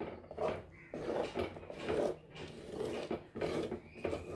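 Wooden spatula stirring and scraping thick homemade fruit jam around a clay pot, in repeated strokes at about two a second.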